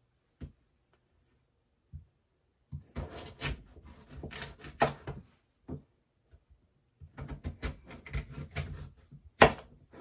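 Kitchen knife cutting a daikon radish on a cutting board: a few single taps, then two runs of quick chops, and one sharp, loudest chop near the end.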